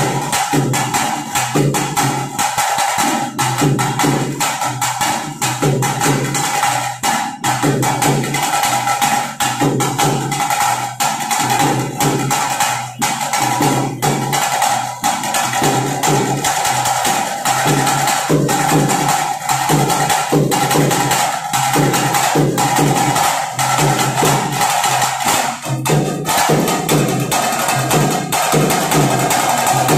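Live festival drumming: fast, dense, repeated drum strokes with a steady high tone held above them.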